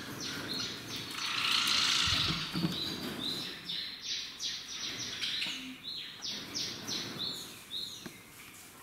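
Small cage birds chirping: a steady run of short, high, quick notes repeated many times, with one louder, noisier call lasting about a second near the start.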